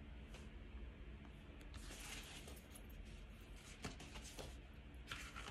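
Near silence: faint room tone with a couple of soft clicks about four seconds in as a paper picture book is handled.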